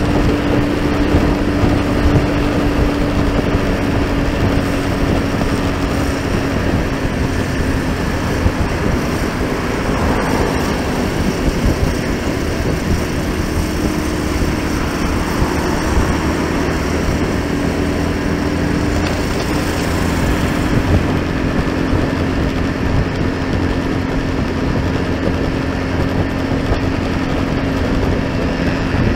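Steady road noise from riding along in traffic: a vehicle engine running at an even speed with a held drone, over the rush of wind and tyres.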